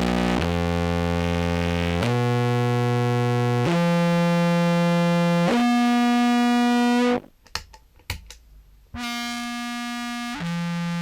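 Contrabass clarinet run through a phaser into a fuzz pedal, playing long distorted, buzzy notes that step upward one after another, then, after a short break with a few clicks, step back down. The rising notes go through the Fuzz Page Mark II fuzz module and the falling ones through the Goat's Head fuzz module.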